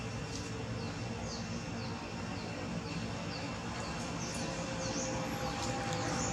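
Repeated short high-pitched chirping calls, several a second, each sliding down in pitch, over a steady background of outdoor noise.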